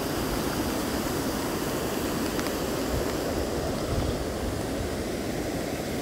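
Steady rushing of a rocky mountain stream and a small waterfall cascading over stones.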